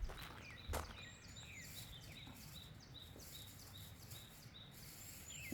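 Small birds singing: a quick string of short, repeated high chirps, about three a second, mixed with a few falling notes, over a low wind rumble. Two sharp thumps stand out within the first second.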